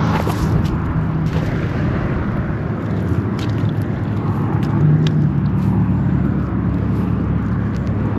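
A steady engine drone whose pitch shifts slightly about five seconds in, over a low rumble.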